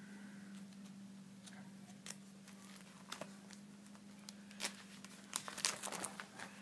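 Plastic card-binder sleeve pages crinkling and crackling as they are handled and turned, in scattered faint crackles that bunch up and grow louder about five seconds in, over a steady low hum.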